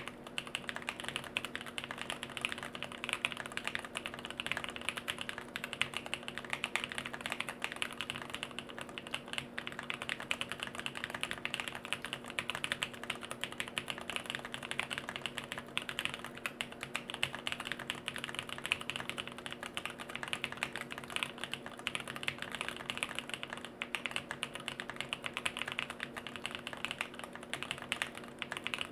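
Continuous typing on a jLabs JP-02 custom mechanical keyboard with Bolsa Supply Corsa switches on an FR4 plate, no case foam, Durock V2 stabilizers and KBDFans Neon keycaps: a dense, unbroken run of key clacks.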